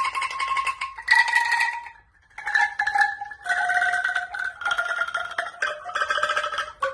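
Bamboo angklung tuned to the C major scale, shaken one tube frame after another to play a descending scale. Each note is a rattling tone about a second long, and six notes step down in turn, with a short gap about two seconds in.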